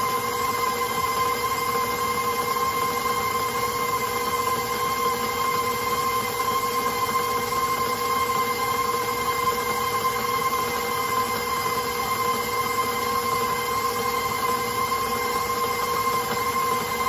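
Electric stand mixer motor running steadily at constant speed with an even whine, its flat beater churning thick cookie dough in a stainless steel bowl.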